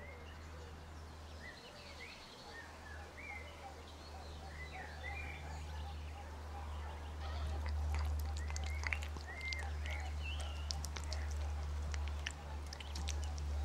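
Small birds chirping over a low steady rumble of outdoor ambience, with a scatter of sharp clicks and taps starting about halfway through.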